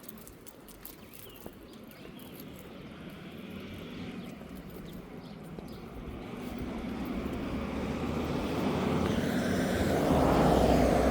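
A road vehicle approaching along the road, its tyre and engine noise growing steadily louder and passing close near the end.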